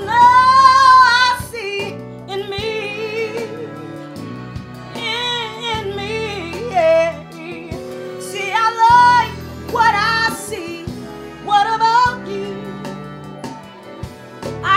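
A soulful gospel-style song: a woman singing long, wavering held notes over steady accompaniment.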